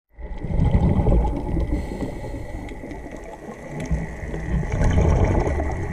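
Underwater sound picked up through a camera's waterproof housing: low rumbling surges of water movement that swell and ease, with a thin steady tone and scattered faint crackling clicks above them.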